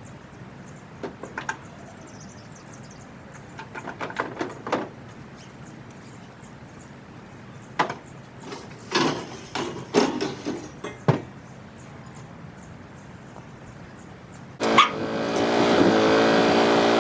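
Scattered clicks and knocks of tools being handled, then, near the end, a motor starts abruptly and keeps running loud and steady.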